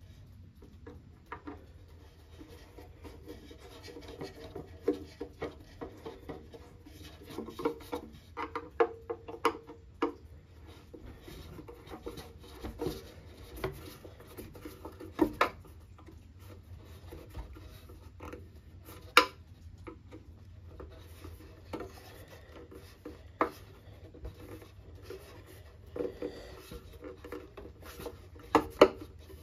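Hand screwdriver turning a stiff wood screw into the desk's wooden side: irregular creaking and scraping of the screw biting into the wood, with sharp clicks every few seconds. The screws are hard to drive back in.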